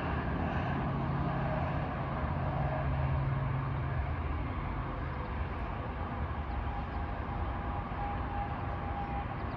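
Steady rumble of road traffic from a highway running over a culvert. A low hum under it stops about five seconds in, and a faint high tone comes in later.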